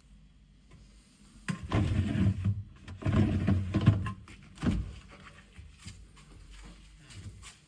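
Clattering handling noise: two loud bursts of knocks and rattles about a second long each, then a shorter bump and a few light clicks.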